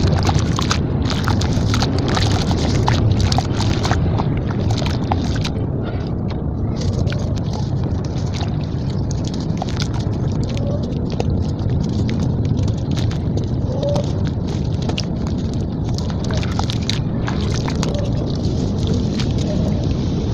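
Wet red sand-cement slabs being broken and crumbled by hand in a basin of water: dense crunching crackles, thickest in the first few seconds and more scattered after, with water sloshing around the hands. A steady low rumble runs underneath.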